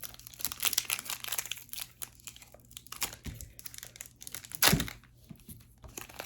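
Foil booster-pack wrapper crinkling and being torn open by hand, an irregular run of crackles and rips, with one sharp, louder noise about three-quarters of the way through.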